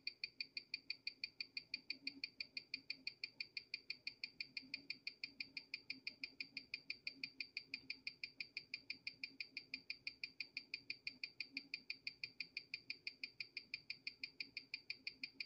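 Steady ticking of an NH34A automatic watch movement, amplified through a Weishi No. 1000 timegrapher's speaker, about six beats a second (21,600 beats per hour). It carries a 2.1 ms beat error, a little on the high side, while the watch keeps good time.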